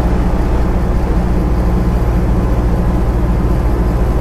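Semi truck's diesel engine running steadily at highway cruising speed, with tyre and road noise, heard inside the cab.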